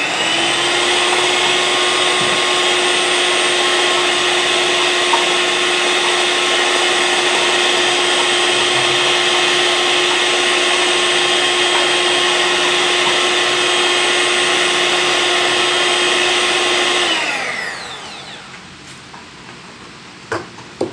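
Electric hand mixer whipping instant coffee, sugar and hot water into foam in a plastic cup, its motor running steadily for about seventeen seconds before it is switched off and winds down, falling in pitch. A few knocks near the end as it is set down.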